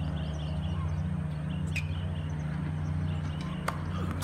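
Tennis ball struck by rackets and bouncing on a hard court: a few sharp pops a second or two apart, the loudest near the end, over a steady low hum, with birds chirping.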